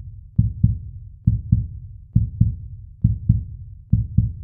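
Heartbeat sound effect: a low double thump, lub-dub, repeating steadily about once every 0.9 seconds, five beats in all.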